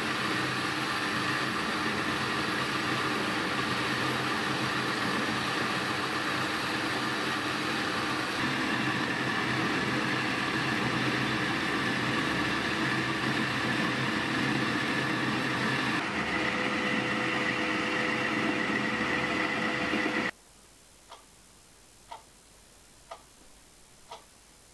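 A workshop machine running steadily with a mechanical hum, its tone shifting twice, then stopping abruptly about twenty seconds in. Quiet follows, with about five soft ticks roughly a second apart.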